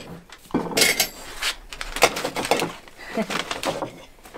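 Plates and cutlery clinking and knocking on a wooden table as food is served out, a few separate clatters.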